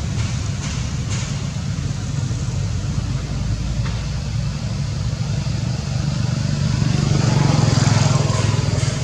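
A low, steady motor-vehicle engine rumble that swells louder about seven seconds in, then eases.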